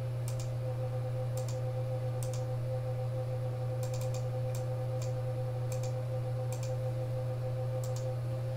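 Scattered clicks of a computer mouse and keyboard, singly and in quick little clusters, over a steady low hum.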